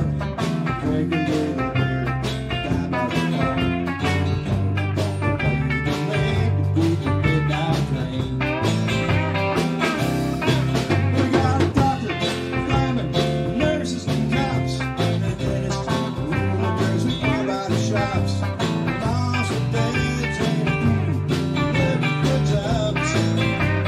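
Live band playing a song: electric bass, hollow-body archtop guitar, solid-body electric guitar and drum kit.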